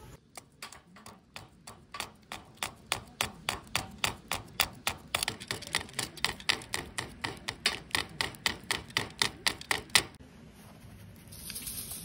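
Metal tongs tapping a burning log in a steel fire bowl: a rapid, even run of sharp knocks, about four a second, that stops about ten seconds in.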